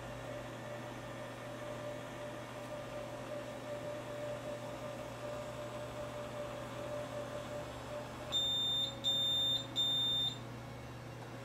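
Steady electrical hum, then, near the end, three short high-pitched electronic beeps, evenly spaced about two-thirds of a second apart.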